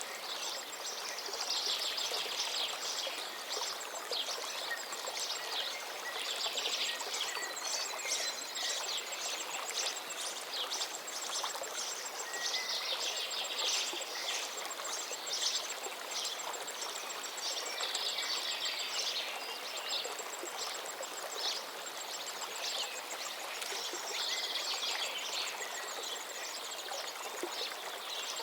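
Waterfall's steady rush of falling water, a constant hiss. Bursts of high chirping calls rise over it every five or six seconds, with a faint pulsing high trill underneath.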